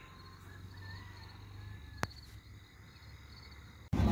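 Faint crickets chirping in an even, repeating pulse over a low hum, with a single sharp click about halfway through. Near the end it cuts suddenly to loud vehicle and wind noise.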